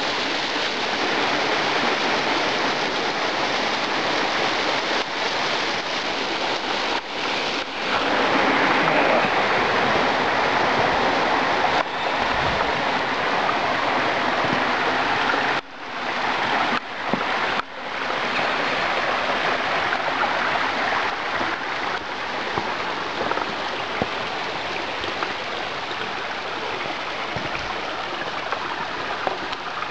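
Creek water rushing steadily over rocks and spilling into a rock pool, with the sound cutting out briefly a few times about halfway through.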